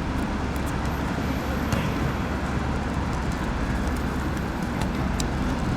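Steady low rumbling outdoor background noise with a few faint clicks.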